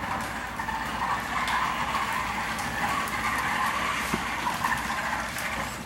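Electric drive motors of a 16-inch remote-control BB-8 droid running steadily as the ball body rolls in follow-me mode, a wavering whir.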